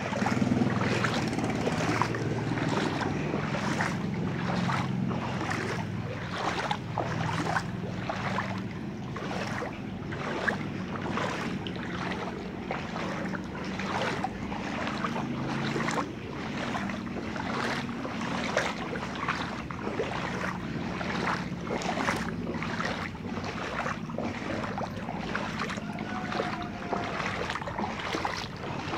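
Shallow brown floodwater splashing and swishing in a regular rhythm, about two splashes a second, as someone wades forward through a flooded street, over a steady low rumble.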